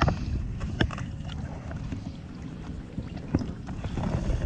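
Water splashing at the side of a boat as a redfish is released by hand, a few short splashes over a steady low rumble of wind on the microphone.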